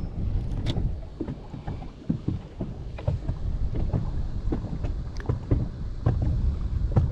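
Wind buffeting the microphone on a small fishing boat in strong wind, a steady low rumble, with scattered light taps and knocks throughout.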